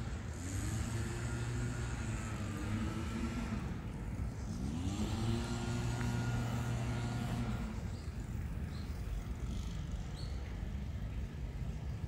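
Two cars passing one after the other on a city street, each engine rising in pitch as it pulls away and then holding a steady note. The second car fades out about eight seconds in, leaving the background noise of the street.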